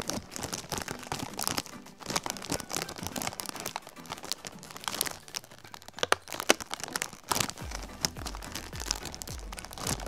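A crinkly snack wrapper rustling and crackling in irregular bursts of crinkles as hands work at it, trying to get a cookie out of the package.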